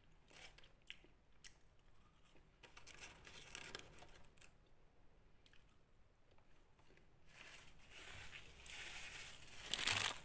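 A person eating close to the microphone: chewing, with a paper food wrapper crinkling in bursts, loudest near the end.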